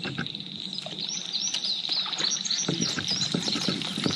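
Songbirds chirping, with scattered light knocks and clicks.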